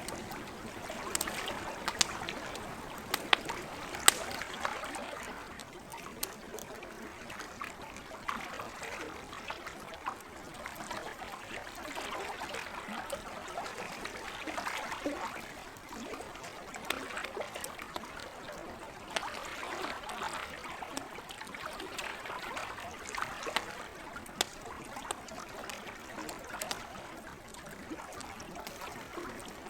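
Lake water lapping and trickling in gentle swells, with a campfire crackling and giving off sharp pops, the loudest few in the first four seconds.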